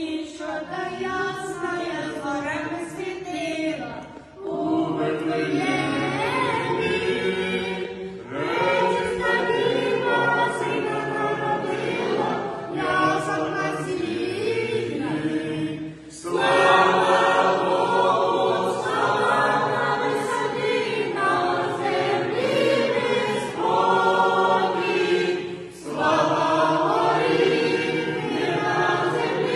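A mixed group of parishioners and a priest singing a Ukrainian Christmas carol (koliadka) together unaccompanied, in long phrases with short breaks for breath between them.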